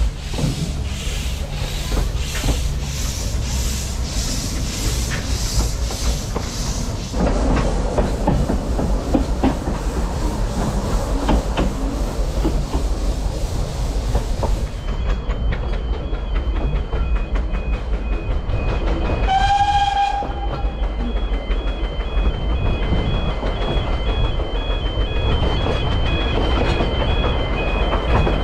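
Narrow-gauge steam train heard from an open carriage: a steady beat of locomotive exhaust chuffs at first, then wheels clattering and rumbling on the rails, with one short whistle blast about two-thirds of the way through. From about halfway on, a level-crossing warning alarm pulses in a rapid two-tone beeping.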